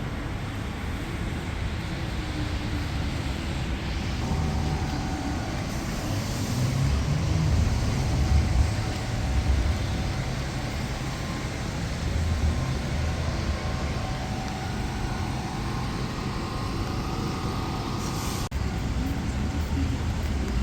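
City street traffic: a steady low rumble of passing vehicles, which swells for a few seconds partway through.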